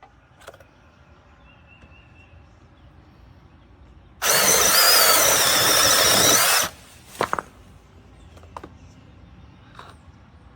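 Cordless battery-powered mini chainsaw run briefly: the electric motor and chain whir for about two and a half seconds with a wavering whine, starting and stopping abruptly. A few short clicks follow.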